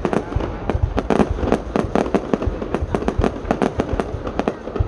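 Aerial fireworks display going off in a rapid, dense barrage: sharp, overlapping bangs and cracks, several a second, without a pause.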